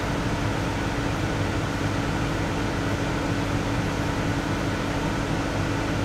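Steady drone of a grain cart tractor running, heard from inside its cab: a constant engine hum over an even rushing noise, with combines harvesting alongside.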